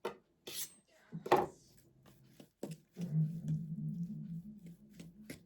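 Kitchen handling sounds: a few sharp clicks and knocks, the loudest about a second in. From about three seconds in, a low steady hum joins them.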